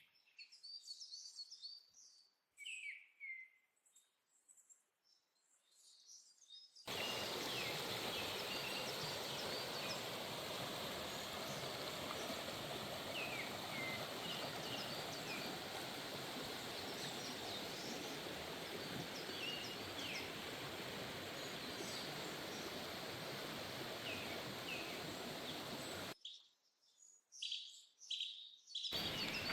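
Small birds chirping with short high calls. For most of the stretch a steady rushing noise lies under them; it starts and stops abruptly, with a quieter spell at the beginning and another shortly before the end.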